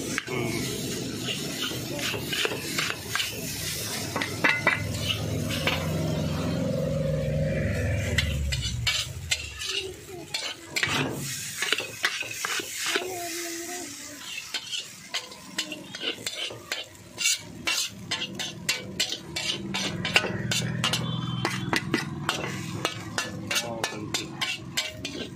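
Metal spatula scraping and clanking against a steel wok as noodles are stir-fried over a sizzle of hot oil. The quick strokes come thicker and faster in the second half.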